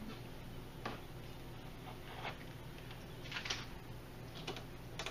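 Thin plastic optical film sheets from an LED TV's backlight stack rustling and crinkling in several brief bursts as gloved hands handle them, over a steady low hum.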